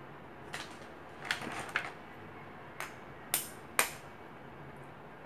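A metal spoon tapping an eggshell to crack it: about six short sharp taps, the two loudest about three and a half seconds in, half a second apart.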